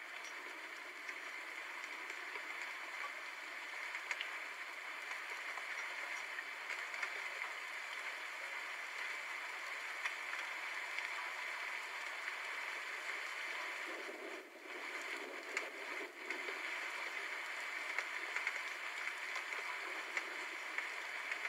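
Steady rain: an even hiss with scattered small drop ticks, briefly dipping in level about two-thirds of the way through. No thunder is heard.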